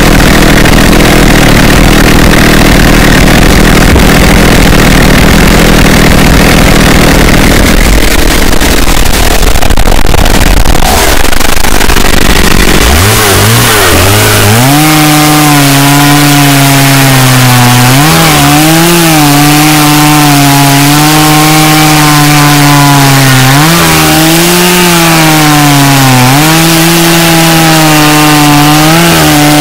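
Petrol chainsaw engine, deliberately overdriven and clipped to near full loudness. For about the first thirteen seconds it runs low and rough. Then the revs climb sharply and hold high, the pitch wavering and dipping several times as the throttle is worked.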